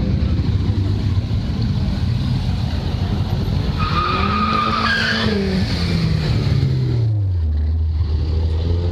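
Motorcycle and car engines running at close range, with a brief tyre squeal about four seconds in. After it an engine's pitch falls and settles into a steady low idle.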